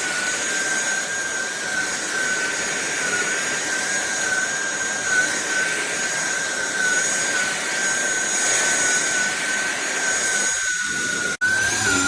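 INTETURE cordless stick vacuum running on high power while sucking up kitty litter: a steady high motor whine over rushing air, its pitch wavering slightly. The sound breaks off for an instant near the end.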